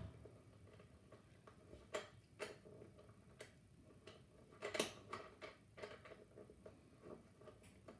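Faint, scattered clicks and ticks from the clamp of an IKEA Tertial desk lamp being screwed tight by hand onto a table edge. The loudest click comes a little past the middle.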